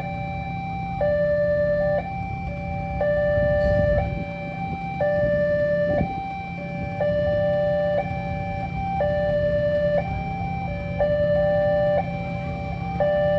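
Railway level-crossing warning alarm sounding, an electronic siren that repeats a pattern of alternating higher and lower tones, changing about once a second, over a steady low hum.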